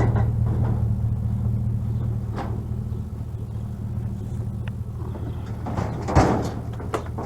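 Motor vehicle engine idling with a steady low hum, and a single knock about six seconds in.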